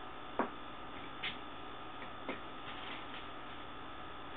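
Three light clicks and taps of skimmer parts and packaging being handled and set down, over a steady hum.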